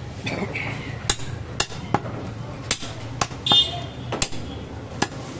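A heavy butcher's cleaver chopping goat meat and bone on a wooden stump block: about seven sharp chops at uneven intervals, one of them about three and a half seconds in followed by a brief high ring.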